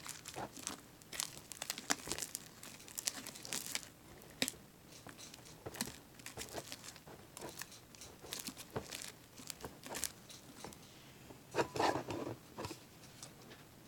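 Fluffy slime (glue, baking soda and shaving cream) being stirred as contact lens solution activates it: an irregular run of sticky crackling and clicking, with a louder stretch near the end.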